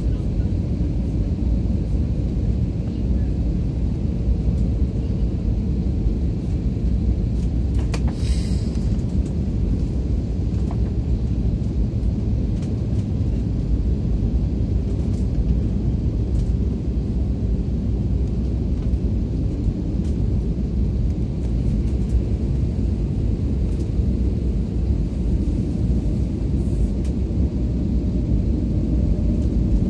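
Jet airliner cabin noise on final approach, heard from a window seat: a steady low rumble of the engines and the airflow over the airframe. There is a brief hiss about eight seconds in.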